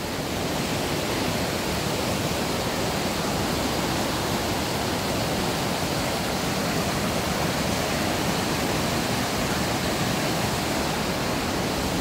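Waterfall in a canyon stream: a steady, unbroken rush of falling water.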